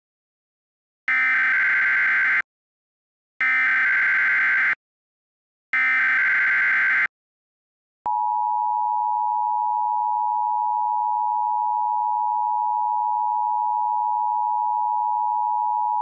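Emergency Alert System SAME header: three bursts of buzzing digital data tones, each a little over a second long and a second apart. About eight seconds in comes the steady two-tone EAS attention signal, held without a break.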